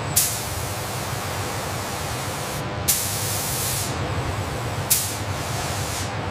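Three sudden bursts of hissing compressed air, the middle one lasting about a second, over a steady low machinery hum.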